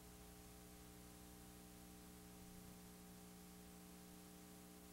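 Near silence: a faint, steady electrical hum with a light hiss underneath.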